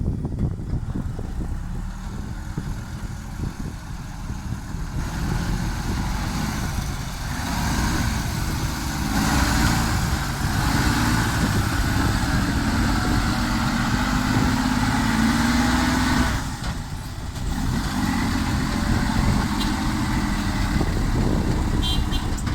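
Heavy diesel dump truck engine running, picking up revs about a third of the way in and slowly climbing. It drops off abruptly about two-thirds through, then picks up again.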